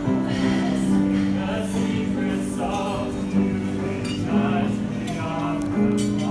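A group of voices singing together, holding long notes that change about once a second.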